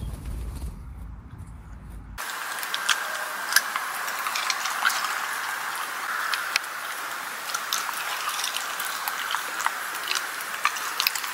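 Shiba Inu eating fast from a stainless steel bowl: irregular sharp crunches and clicks of food and teeth on the metal bowl over a steady hiss, the dog wolfing its food without chewing. Before that, about two seconds of low rumble as the dog shakes itself.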